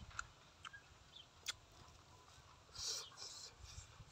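Grilled squid being torn apart with the fingers: a few soft ticks and a short crackly rustle about three seconds in, with faint chewing underneath.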